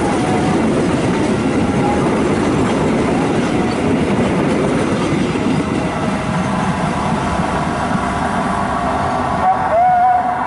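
Passenger train passing close by, its wheels clattering over the rail joints. The noise eases a little after the middle, and a brief tone sounds near the end.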